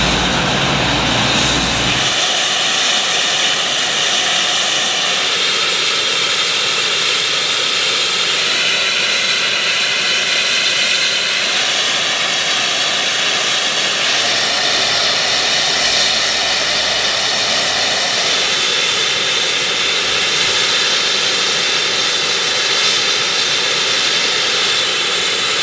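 GWR Castle-class steam locomotive 7029 Clun Castle standing with steam escaping in a loud, steady hiss, with faint steady tones over the rush. The deeper sound drops away about two seconds in.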